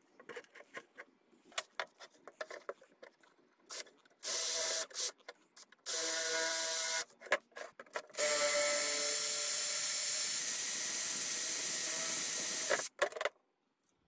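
DeWalt cordless drill boring into a clamped steel bar: two short runs, then a long steady whining run of about four and a half seconds that stops near the end. Before the drilling, light clicks and knocks of the metal clamps and bars being handled.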